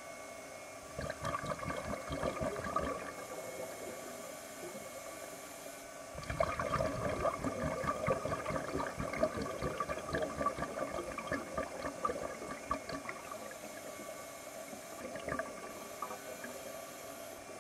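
A diver's exhaled breath bubbling and gurgling underwater: a short burst about a second in and a longer one from about six to thirteen seconds, with a faint steady hum underneath.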